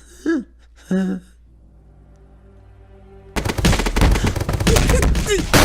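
Two short voice sounds, then a quiet stretch with a faint hum. About three and a half seconds in, a sudden, very loud and dense burst of rapid gunfire-like noise follows: an edited-in loud sound effect.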